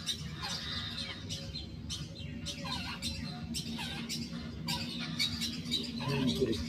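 Babblers calling: a busy run of short, harsh chirps and squawks, many overlapping, over a steady low hum.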